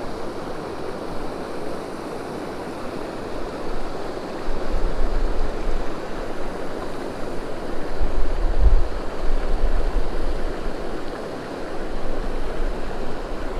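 Steady rush of river water pouring over a low concrete dam spillway. Wind rumbles on the microphone about four seconds in and again, most strongly, around eight seconds.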